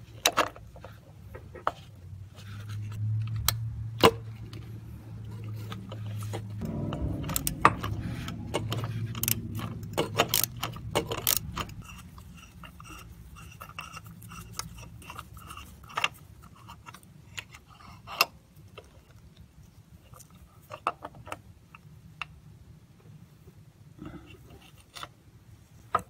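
Ratchet and spark plug socket on an extension, clicking and clinking metal on metal as a spark plug is loosened and unscrewed. Sharp scattered clicks come thickest in the first half, over a low hum.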